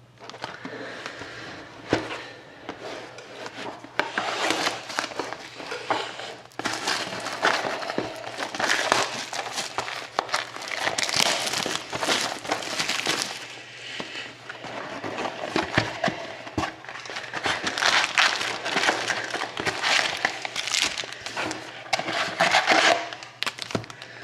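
Plastic wrapping crinkling and tearing continuously with many small sharp crackles as a sealed trading card box is unwrapped and opened.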